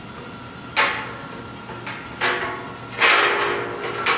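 Four sharp metal clanks against the steel firebox and propane-tank cook chamber, each ringing on briefly through the hollow steel. The third, about three seconds in, is the loudest and rings longest.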